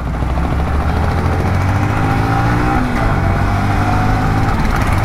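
Yamaha motorcycle engine running while riding, over a steady haze of wind and road noise. About three seconds in, the engine's pitch drops, then it runs on steadily.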